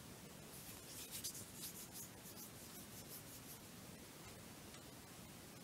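Faint scratchy rubbing in a run of short strokes during the first few seconds, as fingers work Play-Doh on a metal tray.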